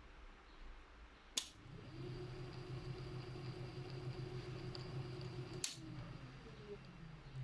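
Triumph-Adler electric typewriter's motor and belt drive switched on with a sharp click, spinning up within half a second to a steady hum. About four seconds later a second click switches it off and the hum fades as the motor runs down.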